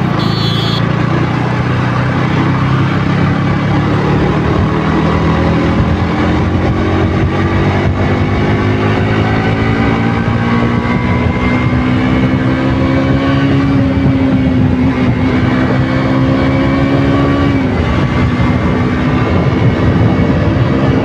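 KTM RC 200's single-cylinder engine running through its stock exhaust while riding, its pitch climbing slowly as the bike accelerates in gear. Near the end the pitch drops suddenly, as in an upshift, and the engine pulls on again.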